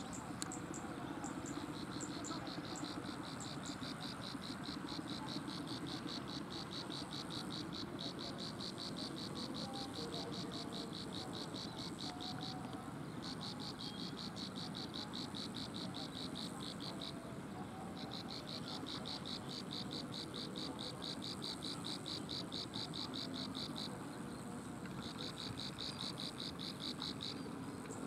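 Plain prinia (ciblek sawah) singing: long runs of fast, evenly repeated high, insect-like notes, in four bouts broken by short pauses, the first lasting about ten seconds.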